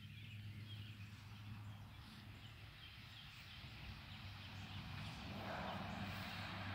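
Faint outdoor background: a steady low hum with light bird chirping, and a broader hiss that swells in about five seconds in.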